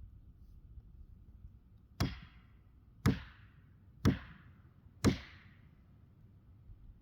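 Four sharp blows struck into a tree, evenly spaced about a second apart, each with a brief ringing tail.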